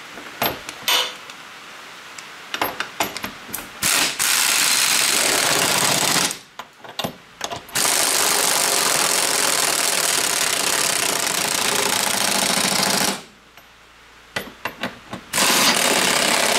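Impact wrench running in three long bursts, tightening the bolts of a lift kit's suspension spacer blocks; the longest burst lasts about five seconds. Scattered sharp knocks and clicks come before the first burst and again between the last two.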